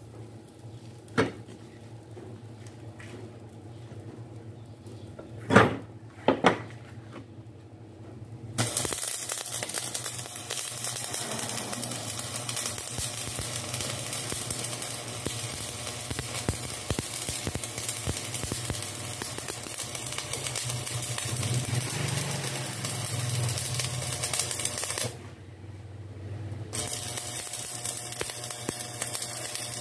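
Stick (shielded metal arc) welding on steel bar: a few sharp metal knocks, then about nine seconds in the arc strikes and runs as a steady dense crackle. It breaks off for a couple of seconds near the end and is struck again.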